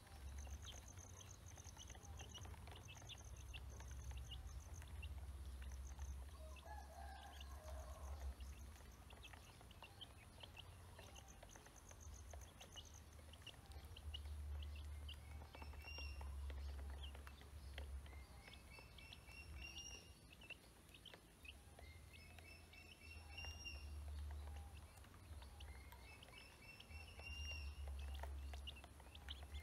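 Ducklings and chicks peeping faintly as they feed, with many short clicks of bills pecking in a plastic basin. Repeated short rising peeps come in from about halfway through.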